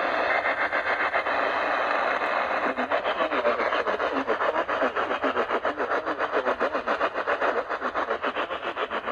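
Radio receiver static between broadcasts: a steady hiss that pulses rapidly, the pulsing growing stronger after about three seconds.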